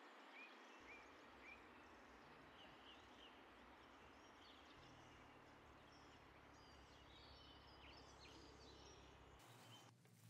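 Faint outdoor ambience: a steady background hiss with a low hum under it, and small birds chirping briefly now and then.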